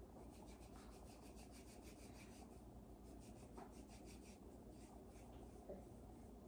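Near silence: room tone with faint soft rubbing and scraping strokes.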